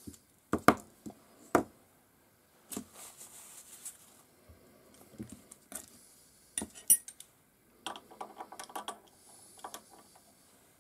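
Irregular sharp metallic clicks and clinks of hand tools on the steel of a mini lathe and bench, as an adjustable spanner is picked up and fitted over the locked nuts on the tool-post stud. The loudest clinks come in the first two seconds, with a quick run of small clicks about seven seconds in.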